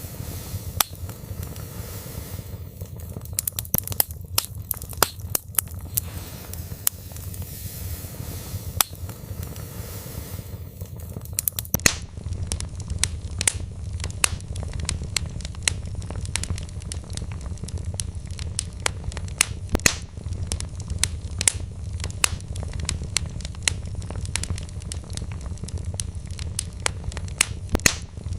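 Wood fire burning in a fireplace: a steady low rumble under frequent, irregular crackles and sharp pops from the burning logs.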